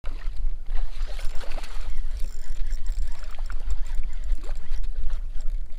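Water splashing and trickling around a kayak on the water, with a steady low rumble underneath.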